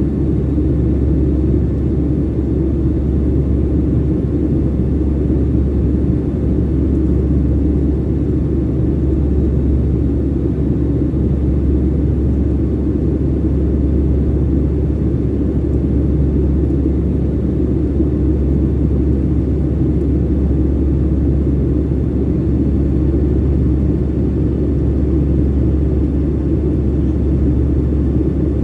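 Steady low rumble of an airliner's engines and rushing air, heard from inside the passenger cabin in flight.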